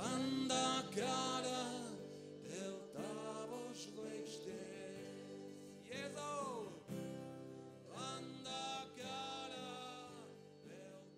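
Live worship song: singing over acoustic guitar accompaniment, getting quieter toward the end.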